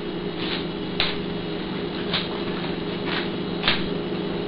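Black pepper being shaken out over raw steaks: short, crisp rattling bursts about one every half second, over a steady low appliance hum.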